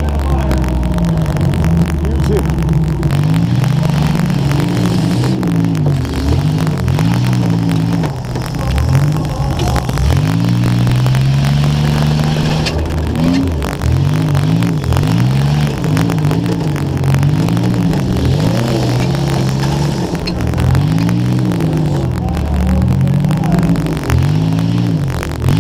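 Demolition derby car engine being revved hard again and again, its pitch rising and falling every second or two, over a crackle of static from a wet microphone.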